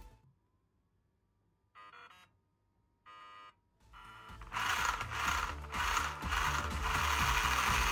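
An RC car's electronic speed controller beeps twice as the battery is connected and it arms. Then the electric motor spins the drivetrain gears in short throttle blips, settling into steady running near the end.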